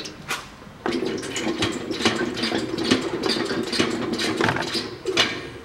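Engine oil trickling and dripping from the sump drain hole into a metal drain pan, with scraping and clattering of the metal pan from about a second in, as the last of the oil drains out.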